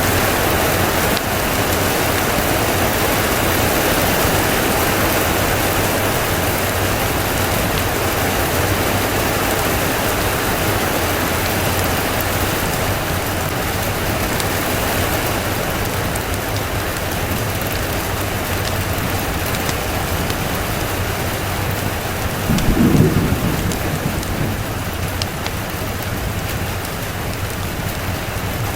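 Steady rain pouring, with one short low rumble of thunder about three-quarters of the way through.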